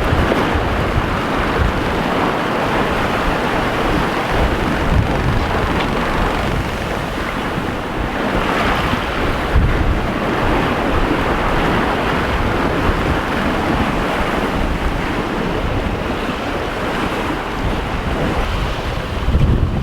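Wind buffeting the microphone over the steady rush and wash of waves along a sailboat's hull as it sails.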